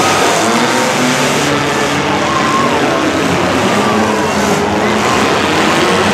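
Engines of several compact demolition derby cars running and revving together, a dense steady din with pitches that rise and fall.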